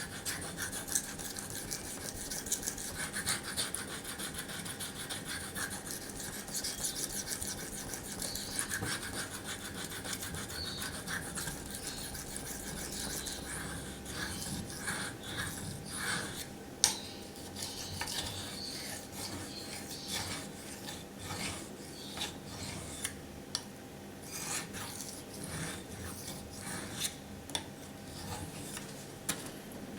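SOG Flash 2 knife blade being stroked slowly over a Naniwa Chosera waterstone, a steady scraping rasp. From about halfway through, the scraping breaks into separate strokes with a few sharp clicks.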